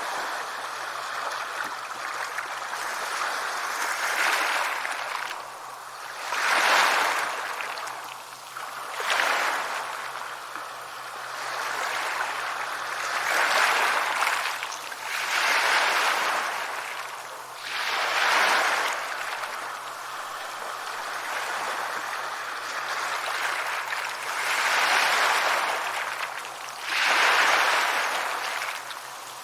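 Sea waves breaking and washing on a shore, a steady hiss that swells and ebbs as one wave after another comes in, every two to three seconds.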